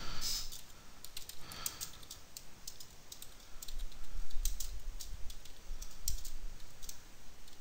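Typing on a computer keyboard: an irregular run of quick keystroke clicks, coming thicker in the second half.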